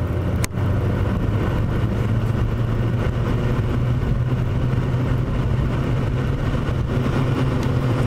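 Small vintage Marvin screen fan running at speed just after being switched on: a steady electric motor hum with air rushing through the blades. A single sharp click about half a second in.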